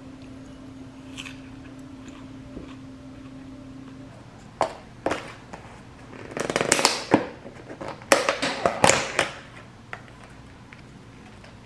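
Crinkling plastic and sharp snapping clicks as a plastic takeout food container is unwrapped and its clear plastic lid is pried off. The snaps and crackles come in a quick string over several seconds. A low steady hum fills the first few seconds, before the handling starts.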